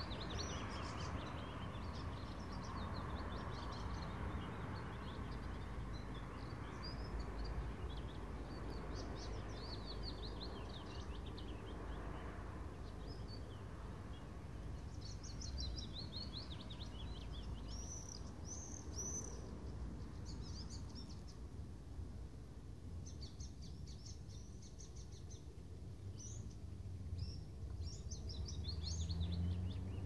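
Many songbirds singing over one another in a morning chorus, quick high twittering phrases that keep overlapping, over a steady low rumble that swells near the end.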